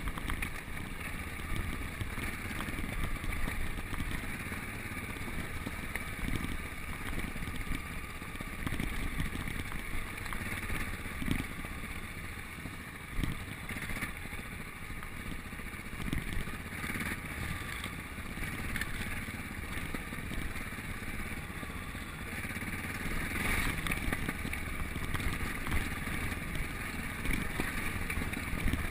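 Single-cylinder Yamaha Ténéré engine running steadily while riding a dirt forest track, with wind noise on the bike-mounted camera's microphone. A few brief knocks from the bike over bumps.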